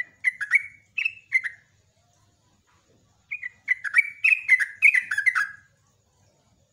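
Caged yellow-vented bulbul singing: a short phrase of quick, down-slurred chattering notes at the start, then a longer, louder run of about ten notes roughly three seconds in.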